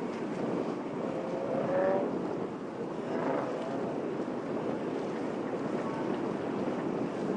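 Steady rushing background noise with a few raised voices calling out over it, once about a second in and again about three seconds in.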